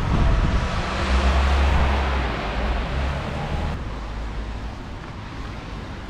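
A car passing on a wet road, its tyre hiss and engine swelling over the first two seconds and fading away, with the hiss dropping off suddenly just under four seconds in. Wind rumbles on the microphone throughout.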